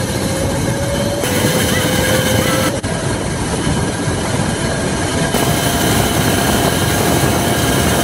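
Electric go-kart driving at speed on a wet road, heard from on board: a loud rush of wind and tyre noise, with a whine from the motor and chain drive that rises in pitch as it speeds up. The sound jumps abruptly a few times.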